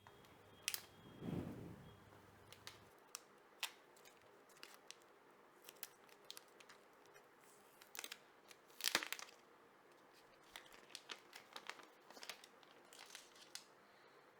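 Plastic packaging being handled up close, crinkling and tearing in short, scattered crackles and clicks, with a louder crackle about nine seconds in.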